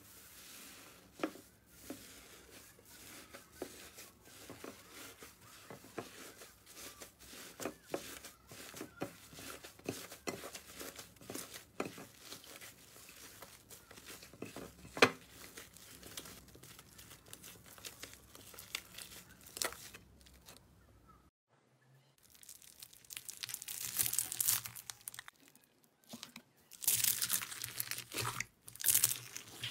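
Hands pressing and kneading thick green slime, with a steady run of small sticky crackles and pops. About two-thirds of the way through, louder crunching and crackling as red slime full of foam beads is squeezed.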